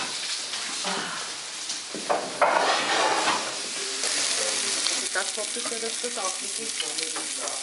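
Lamb cutlet sizzling as it fries in a pan, the sizzle growing louder about halfway through.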